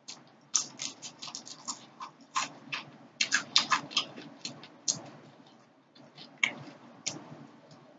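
Close-up mouth sounds of chewing fried tilapia: an irregular run of crisp clicks and smacks, thickest in the first half and thinning out toward the end.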